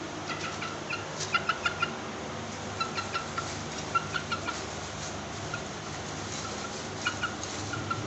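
Chickens clucking in short, quick calls that come in clusters of three or four, with pauses between the clusters, over a steady low hum.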